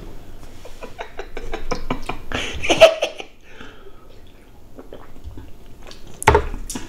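Two people drinking from aluminium cans of zero-calorie soda: a run of small clicks from handling the cans, a louder clatter about three seconds in, then gulping and swallowing, with a short vocal 'ah' near the end.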